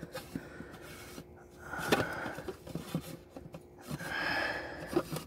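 Plastic oil filter housing cap with its cartridge filter being fitted up into place by hand: quiet rubbing and scraping of plastic, with small ticks and a sharp click about two seconds in.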